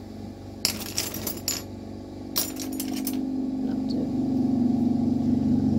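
Glass rods clinking against one another in two short flurries as they are sorted through. Under them runs a steady low machine hum that swells from about two seconds in and becomes the loudest sound.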